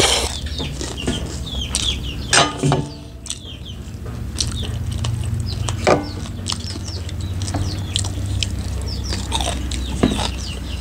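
Close chewing and lip-smacking as people eat fried fish and rice by hand, with many short clicks throughout. A chicken clucks in the background, and there is a steady low hum underneath.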